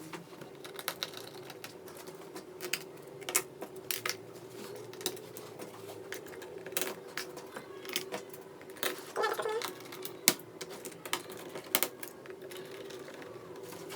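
Small screws being driven back into a laptop's bottom cover with a screwdriver: irregular light clicks and ticks over a steady hum.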